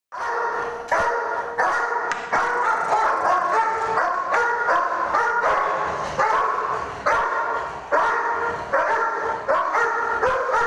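A dog barking over and over, a fresh bark every half second to a second, at a steady loud level.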